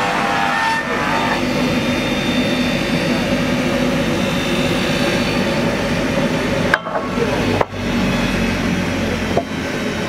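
Triumph sawmill line's multi-rip circular saw running steadily as sawn boards feed through it. The sound is a loud, even machine noise that cuts out briefly a few times about seven seconds in.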